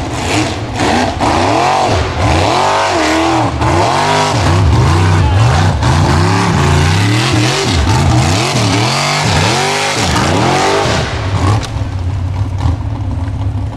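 Formula Offroad buggy's engine revving hard on a steep dirt hill climb, its pitch swinging up and down over and over as the paddle tyres spin and catch. Near the end the engine drops away and a couple of knocks come as the buggy rolls over.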